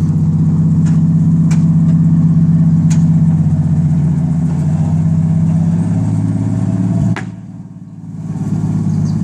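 Forklift engine running steadily, with a few sharp knocks over it; about seven seconds in the engine sound drops away suddenly, then builds back up a second later.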